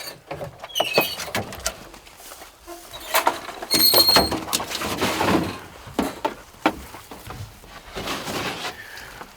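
Knocks and clanks as hunting dogs are handled, with a bright metallic jingle about four seconds in.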